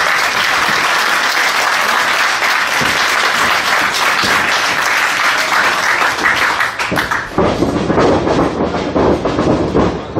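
Wrestling crowd applauding and cheering. About seven seconds in, the noise shifts lower into a rhythmic, pulsing beat from the crowd.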